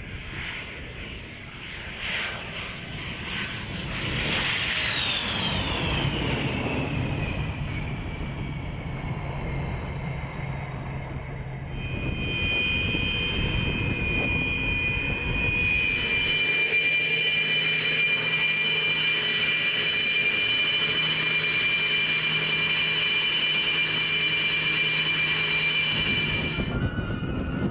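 Sukhoi Su-27SM / Su-30M2 fighter jets' engines whining. A high whine falls in pitch a few seconds in. Then a steady, high turbine whine with a low hum underneath grows louder about sixteen seconds in and cuts off suddenly near the end.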